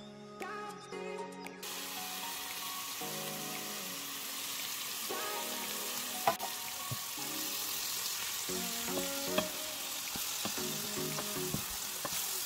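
Zucchini and mushrooms sizzling as they sauté in oil in a frying pan. The sizzle starts suddenly about a second and a half in, with a wooden spoon stirring and two sharp knocks. Light background music plays over it.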